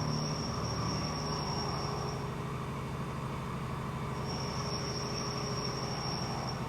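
2008 Kia VX500 CNC vertical machining center running, a steady low mechanical hum with a thin high whine that sounds for the first two seconds or so and comes back about four seconds in.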